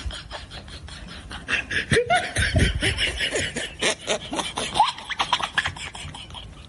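Rapid chattering, laughter-like vocal sounds mixed with quick clicks, louder from about two seconds in.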